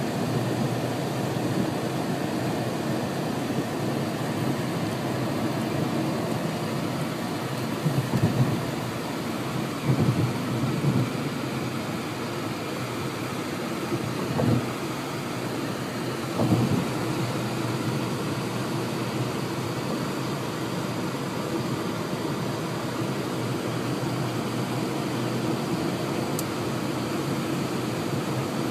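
Steady rushing wind and road noise from a moving car with an open window, with a few louder low rumbles between about 8 and 17 seconds in.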